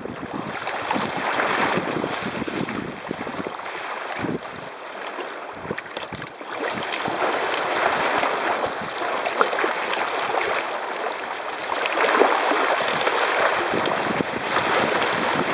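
Wind buffeting the microphone and water rushing and splashing along the hull of a sailing kayak running fast before the wind through choppy waves, swelling and easing in surges, with spray breaking over the bow near the end.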